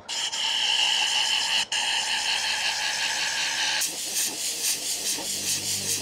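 Tornador compressed-air cleaning gun hissing as it blasts dust out of the vinyl mesh of a car seat, with a short break about a second and a half in. The hiss cuts off suddenly at about four seconds.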